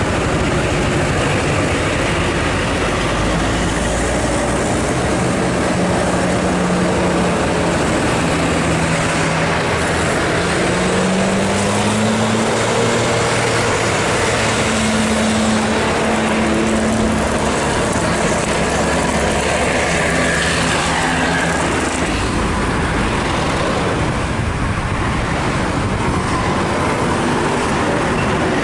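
Diesel engines of large intercity coaches pulling up a steep climb as they pass close by, with heavy road noise; about a third of the way in one engine's note rises and then holds high under load.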